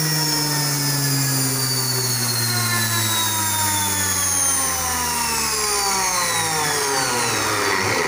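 Washing machine's brushed universal motor running on mains with nothing coupled to its pulley: a loud, steady electric whine over a hissing rush from the brushes and commutator. The whine's pitch sinks slowly and steadily as it runs.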